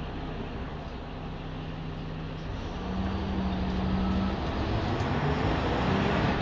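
Diesel engine of a Jelcz 120M/3 city bus (WSK Mielec 11/300/1), heard from inside the bus as it accelerates. Its note steps up and grows louder about three seconds in, then drops back about a second and a half later.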